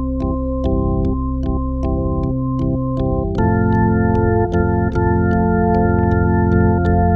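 Instrumental music: held chords over a steady ticking beat. The chord changes and the music grows louder about three and a half seconds in.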